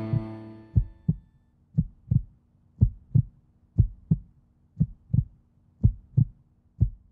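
Heartbeat sound effect: seven double thumps, about one a second, over a faint low hum, after the tail of the music fades away in the first second.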